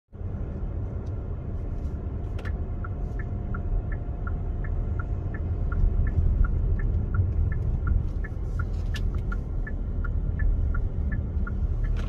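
Car driving on a paved road, heard from inside the cabin: a steady low rumble of road and engine noise. From a couple of seconds in until near the end, a light, regular ticking, about three to four ticks a second, alternating between two pitches.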